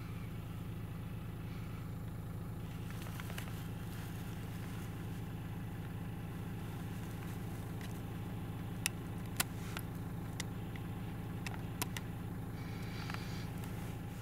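A motor vehicle engine idling steadily, a low even hum, with a few sharp clicks about two-thirds of the way through.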